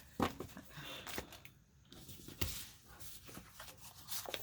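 Paper handling: small envelopes and paper pieces rustling and tapping as they are picked up and sorted, in short irregular bursts, with a sharper rustle about a quarter second in and another about two and a half seconds in.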